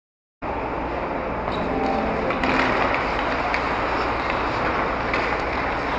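Ice hockey arena ambience during play: a steady wash of skates on the ice with a faint murmur of voices and a few light clicks. It comes in after a moment of dead silence at a video cut.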